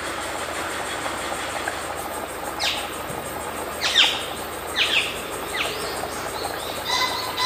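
Chicken curry boiling hard in a pot on an induction cooktop, a steady hiss. A bird chirps over it, four quick falling chirps in the middle and another call near the end.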